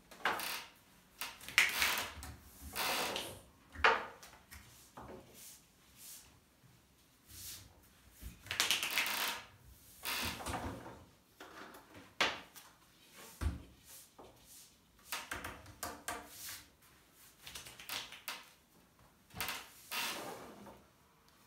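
Long thin wooden rolling pin (oklava) working yufka dough on a glass tabletop: a run of irregular rolling swishes and knocks of wood on glass, about one a second, with a longer sweep near the middle and a single low thud.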